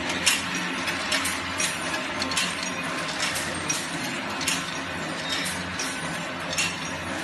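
Jacquard loom weaving polypropylene mat, running with a regular clatter of sharp knocks, roughly two a second, over a steady machine hum.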